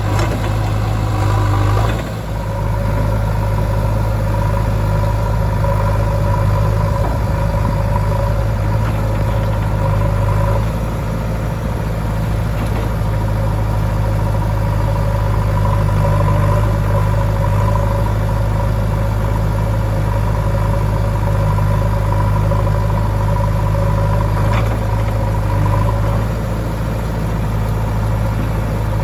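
Heavy diesel machinery engine running steadily at a constant speed, with a brief dip in loudness about two seconds in.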